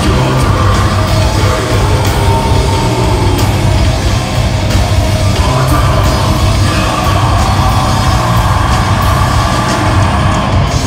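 Heavy metal band playing live: distorted electric guitars, bass and drums at full volume, with vocals over the top.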